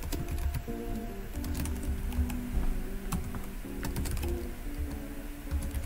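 Computer keyboard being typed on: a run of irregular key clicks, over background music with held notes.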